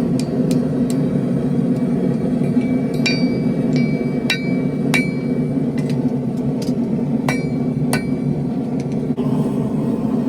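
Hand hammer striking steel on an anvil in irregular blows, about a dozen, each with a short metallic ring, while forging chain links. A steady low rumble runs underneath.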